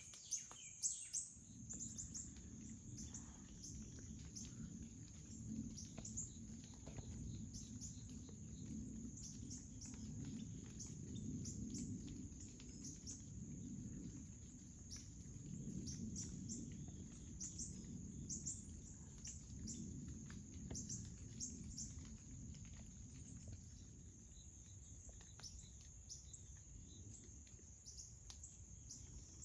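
Faint woodland ambience: a steady high-pitched insect chorus with short high chirps scattered through it, over a low, fluctuating rumble.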